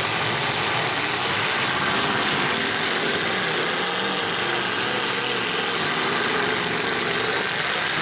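Engines of several 1980s-model demolition derby cars running together, a steady blend of engine noise as the cars move around the dirt arena.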